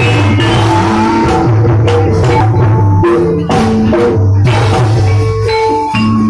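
Jathilan dance accompaniment music: a steady drum beat of about two strokes a second under pitched melodic notes.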